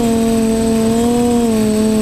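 TBS Discovery quadcopter's electric motors and propellers buzzing steadily in flight, heard close up from the craft's own camera. The pitch dips slightly about a second and a half in.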